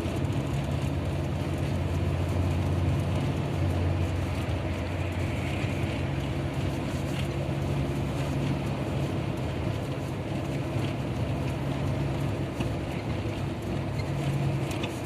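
Car's engine and tyres droning steadily while driving, heard from inside the cabin.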